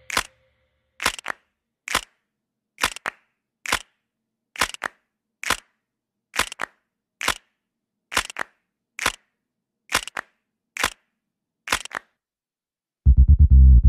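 Finger snaps in a music track keeping a steady beat, about one a second, with nothing else playing. Heavy bass music comes back in near the end.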